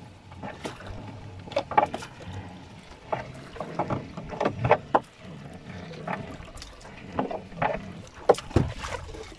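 Gill net being hauled by hand into a wooden rowboat: irregular knocks and rustles as the wet net and its floats come over the gunwale and drop into the hull.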